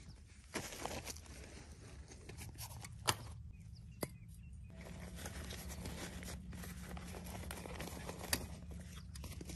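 Handling of camping gear: rustling and three sharp knocks, the loudest about three seconds in, as a butane gas canister is set down on the ground and a folding camp stove is pulled from its cloth pouch, over a steady low hum.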